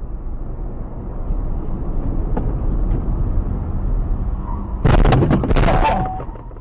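Low road and engine rumble of a moving car, then about five seconds in a vehicle collision: a sudden loud bang followed by a second of several more impacts, dying away quickly.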